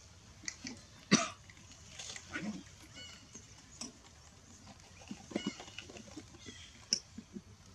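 Sporadic short sounds from macaques in dry leaf litter: a sharp crackle about a second in, the loudest, then scattered soft knocks and rustles and a few faint, high, short squeaks.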